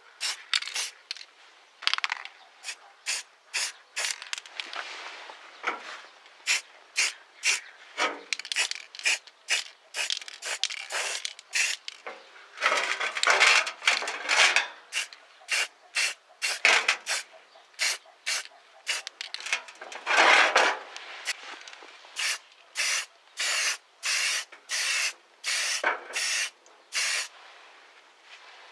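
Quick back-and-forth abrasive rubbing strokes, about one to two a second, with a couple of longer, louder scrubbing passes partway through.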